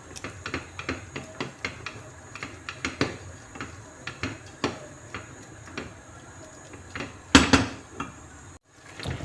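A spoon stirring frying onions with spices in a pot, tapping and scraping against the pot many times over a low sizzle. A louder clatter comes about seven seconds in.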